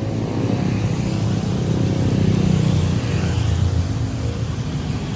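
Large vehicle engine running with a steady low rumble, swelling louder about two seconds in as traffic goes by on the wet road.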